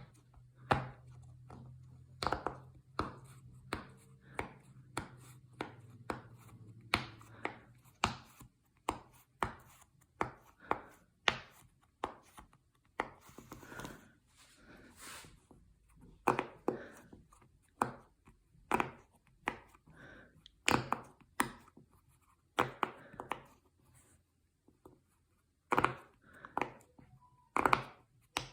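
Silicone pop it fidget toy bubbles being pressed in, one after another, giving short sharp pops at an uneven pace of about one or two a second.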